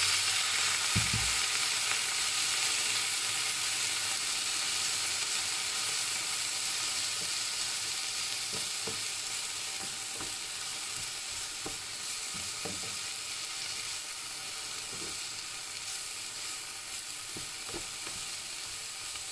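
Garlic chive flowers and sausage sizzling hard in a hot frying pan after a splash of water, the hiss starting loud and slowly dying down. A wooden spatula knocks against the pan now and then while stirring.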